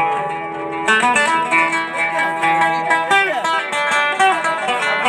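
Instrumental folk music between sung verses: a melody played on a plucked string instrument.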